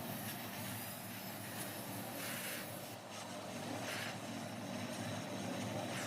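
Gas welding torch flame hissing steadily while a split motorcycle silencer is welded. The hiss swells briefly twice, over a low hum.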